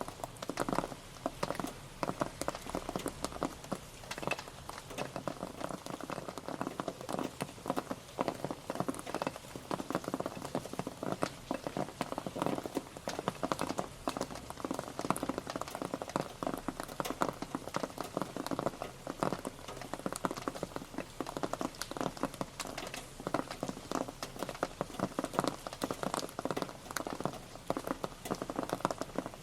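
Rain pattering steadily, a dense, irregular stream of drops striking a surface, each giving a short knock.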